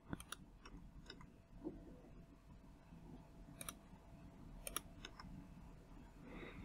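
Faint computer mouse clicks, a handful spread out with two quick double clicks near the middle, over quiet room hiss.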